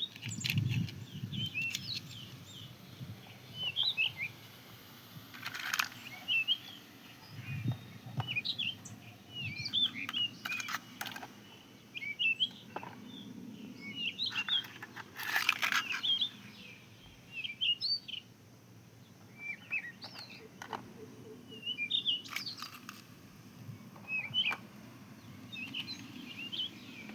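Small birds chirping and twittering in short repeated calls throughout, with a few brief rustling or scraping noises and low knocks, the loudest about 6 seconds in and around 15 seconds in.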